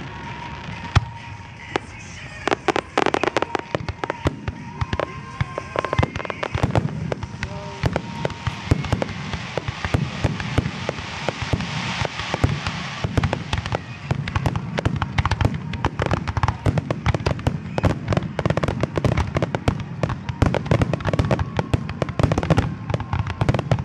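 Aerial fireworks shells bursting in a rapid, overlapping barrage of bangs and crackles, growing denser and almost continuous after the first several seconds.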